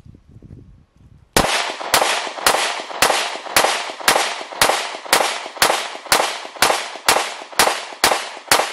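Shadow Systems CR920X 9mm pistol firing fifteen shots in a steady string, about two a second, starting about a second and a half in, each crack followed by a short echo.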